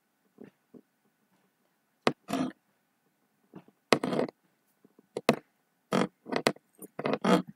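A series of short, irregular clicks and knocks close to the microphone, starting about two seconds in and coming more thickly near the end, with dead silence between them.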